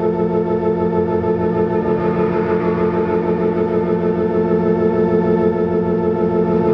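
Music: a held organ-like chord drone, steady and unchanging, with a slight regular pulsing in its loudness.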